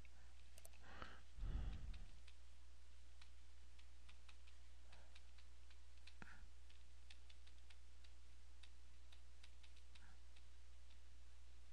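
Steady low electrical hum with faint, scattered clicks and ticks, and a brief soft low sound about a second and a half in.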